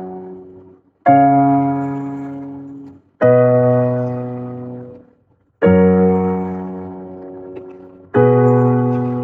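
Electronic keyboard with a piano sound playing four chords one at a time, about two to three seconds apart. Each chord is struck and left to ring and fade.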